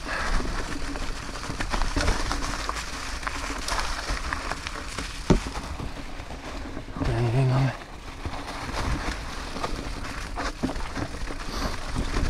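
Mountain bike tyres rolling over dry fallen leaves and dirt on a forest trail: a steady crackling rustle with the bike rattling over the ground. A sharp knock about five seconds in, and a short low voice sound about seven seconds in.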